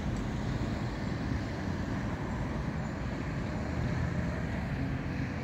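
Steady street traffic rumble, with a double-decker bus's engine running as it drives past.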